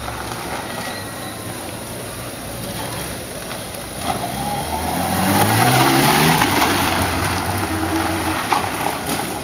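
1986 Kawasaki ZN1300 Voyager's inline-six engine at low speed, rising in pitch as the bike accelerates about halfway through and loudest just after, then easing as it rides away.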